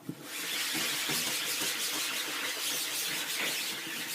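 Folded paper towel rubbing back and forth across the mesh of a screen-printing screen, wiping off leftover ink, in quick repeated scrubbing strokes that pick up again after a brief pause at the start.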